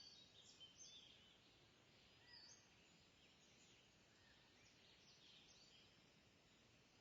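Faint birdsong: scattered short chirps and whistles over a low background hiss.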